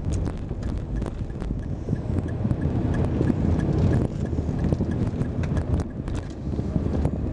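Car cabin driving noise: a steady low road and engine rumble with occasional small knocks. In the middle, for about three seconds, the turn indicator ticks about three times a second.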